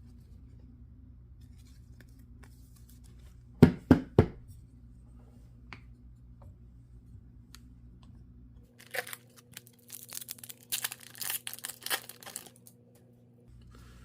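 Foil wrapper of a hockey card pack being torn open and crinkled, a rough crackling run over the last few seconds. About four seconds in, three sharp clicks come in quick succession.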